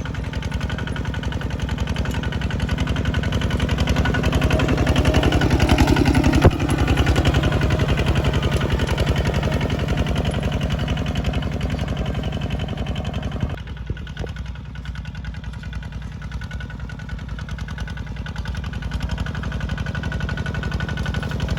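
Bulldozer engine running steadily with a fast, even pulse. It gets louder for a few seconds with a sharp knock about six seconds in. About two-thirds of the way through it suddenly drops to a lower, quieter note, as if the throttle or load has come off.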